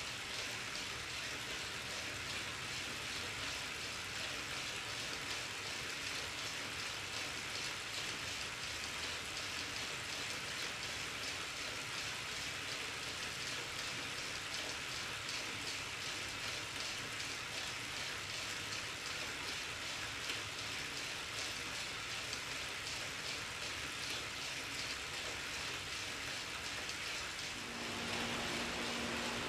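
Wahoo Kickr direct-drive smart trainer running under a pedalling rider: a steady whirring hiss of the flywheel and drivetrain. Near the end it grows a little louder and a low steady hum comes in.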